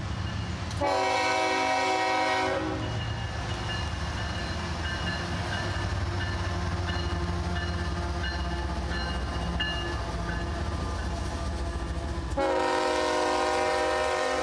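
Union Pacific double-stack freight train passing close by, its lead diesel locomotives giving a steady low rumble. The locomotive horn sounds two long blasts of about two seconds each, one about a second in and another near the end.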